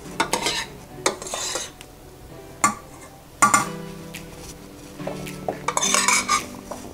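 A utensil stirring wood ear mushrooms in sauce, scraping and clinking against a stainless steel saucepan in a series of short knocks and scrapes, over background music.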